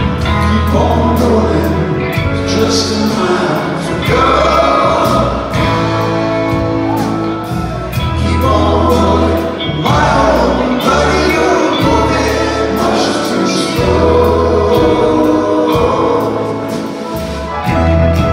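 Live rock band playing, with electric guitar, upright bass, keyboards and drums, and a voice singing over them.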